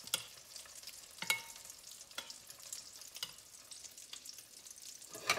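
French toast frying in butter in a non-stick pan, a soft, steady sizzle. Over it, a fork clicks against the batter bowl about five times as the bread is worked in the egg mix, one click ringing briefly and the loudest coming near the end.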